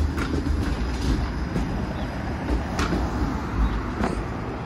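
Low, steady rumble of a TTC Flexity Outlook low-floor streetcar rolling along the street, mixed with passing car traffic, with a few sharp clicks.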